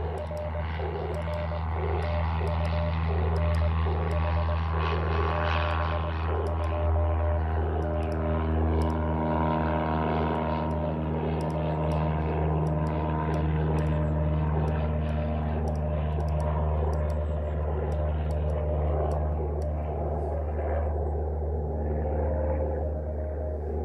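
Propeller airplane engine running loud and steady, with Morse code tones beeping from the ham radio over it.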